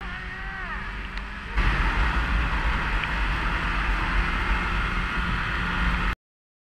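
Snowmobile engine running under way, mixed with wind rushing over the camera microphone. It steps up louder about a second and a half in, holds steady, then cuts off suddenly about six seconds in.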